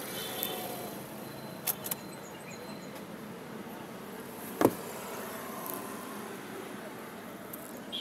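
Steady street and traffic noise heard from inside a car, with a few light clicks and one sharp thump about halfway through.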